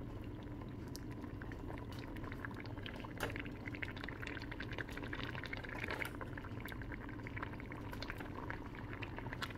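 Thick colocasia-leaf curry bubbling at a steady simmer in a stainless steel pan, with small scattered pops.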